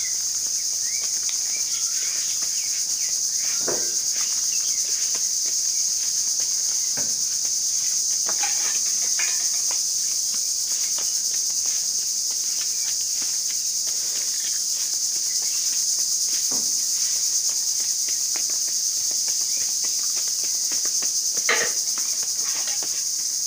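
Steady high-pitched insect chorus, unbroken throughout, with a few faint knocks over it.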